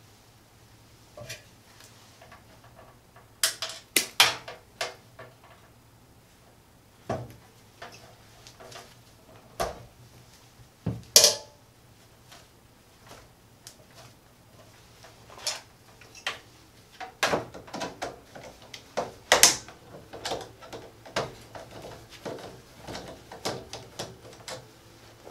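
Irregular clicks, taps and knocks of gloved hands and a screwdriver working at a breaker in a steel panel as wires are fastened to the breaker's screw terminals, with the sharpest knock about eleven seconds in.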